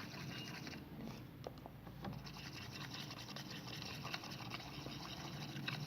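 Light scratching and small clicks of a homemade slime mixture of cream and powder being stirred in a small container.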